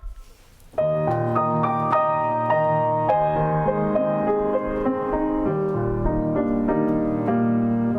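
The previous piece dies away, and about a second in a piano piece begins, playing steady flowing notes.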